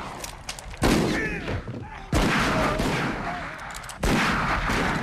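Three loud gunshots in a Western-film saloon gunfight, about one to two seconds apart, each ringing off into a long echoing tail.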